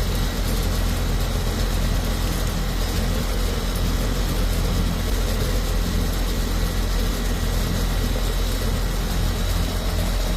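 Air-conditioning condensing unit running steadily, a constant low hum with fan noise over it. The system is running while its charge is checked, and the technician judges it low on refrigerant.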